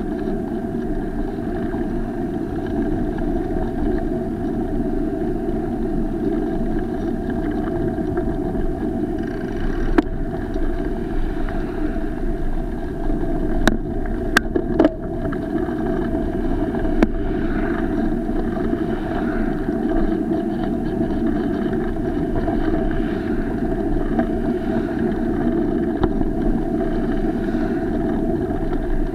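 Steady rumble of wind and road noise on a bicycle-mounted SJ4000 action camera, with cars passing on the road alongside. A few sharp knocks come around the middle.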